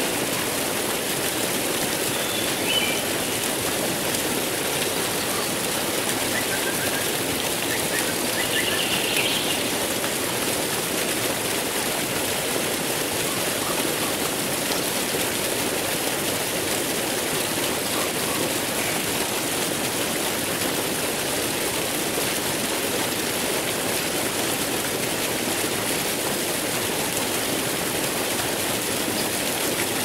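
Steady rush of water, with a few faint bird chirps in the first ten seconds.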